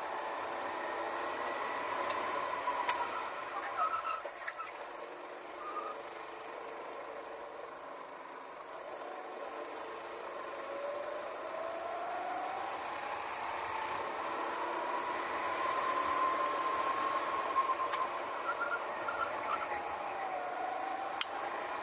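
Go-kart engine heard from onboard. Its pitch falls as the kart slows for a tight corner and rises again as it accelerates away, with a few sharp clicks.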